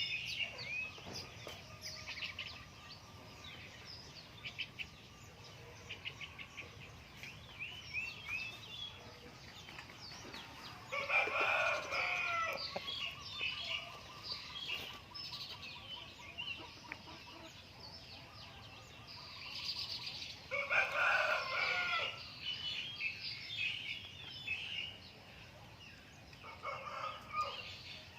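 Rooster crowing three times: about a third of the way in, again about two-thirds in, and a shorter, fainter crow near the end. Steady high-pitched bird chirping runs underneath.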